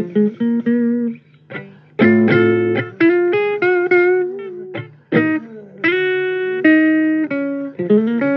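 Electric guitar playing a blues line: single plucked notes with bends and vibrato, and a fuller chord struck about two seconds in.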